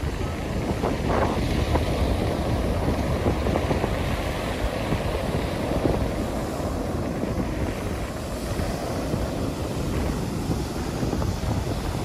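Ocean surf breaking and washing up on a sandy beach, a steady rush of waves, with wind buffeting the microphone.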